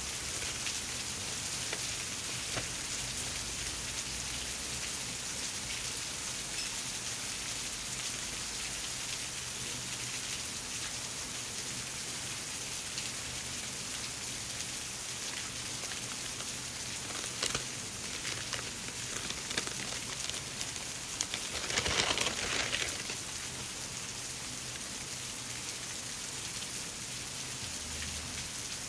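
Paper and plastic stationery packaging handled: soft rustling and small crackles over a steady rain-like hiss, with a louder crinkle about 22 seconds in.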